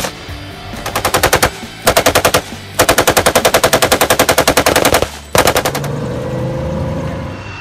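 Belt-fed machine gun on a vehicle turret mount firing blanks through a blank-firing adapter: one sharp shot, then four bursts of rapid fire, the longest about two seconds, the last one short.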